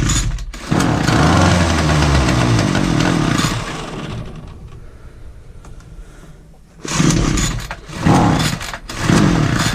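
Petrol strimmer engine of a Titan multi-tool fires and runs for a few seconds, then fades out and dies. Near the end come several short bursts about a second apart as it is pulled over again without catching: the engine is hard to start.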